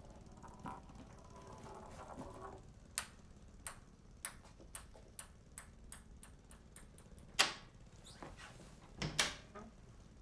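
A run of about a dozen sharp clicks that come faster and faster, then a loud knock, and near the end a double knock as kitchen cabinet doors under a sink are pulled open.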